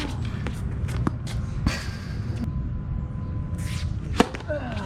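Sharp, isolated tennis ball impacts, a few in all with the loudest about four seconds in, over a steady low rumble on a tennis court.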